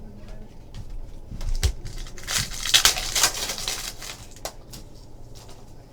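A trading card pack wrapper being torn open and crinkled, loudest for about two seconds in the middle, with small clicks and rustles of cards being handled around it.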